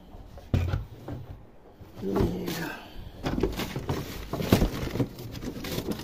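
Irregular clicks and knocks of a washing-machine pressure switch being handled and plugged in.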